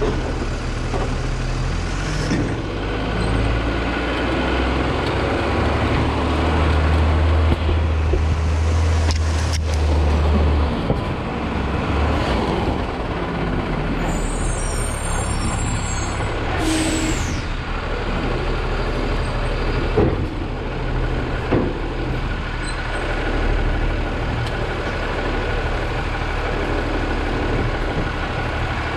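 Automated side-loader garbage truck running: a steady low engine drone that grows stronger for a few seconds about a quarter of the way in, with a short hiss of the air brakes a little past the middle.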